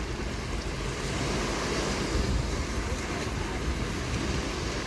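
Ocean waves washing onto a beach in a steady surf, with wind buffeting the microphone.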